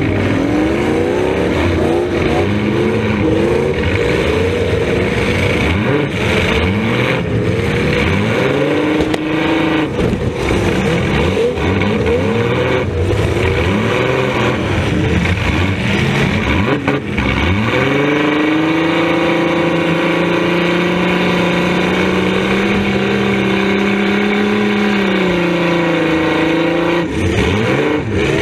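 Demolition derby car's engine revving up and down hard, heard from inside the stripped cabin, with a few sharp bangs in the first half. About eighteen seconds in it holds a high, steady rev for several seconds, then drops back near the end.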